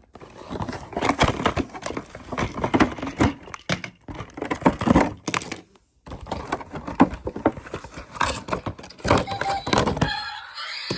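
Toy packaging being handled and opened: irregular rustling and crinkling with many small clicks and knocks.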